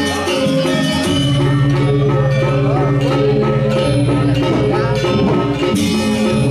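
Balinese gamelan playing the accompaniment for a Telek masked dance: bronze metallophones ringing in quick interlocking figures, with a low sustained tone entering about a second in.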